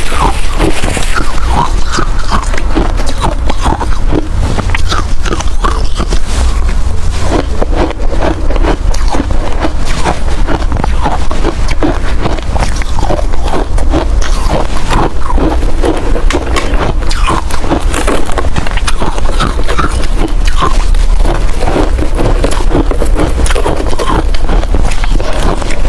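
Hard ice being bitten and chewed close to the microphone: dense, continuous crunching and cracking with no pauses, over a steady low rumble.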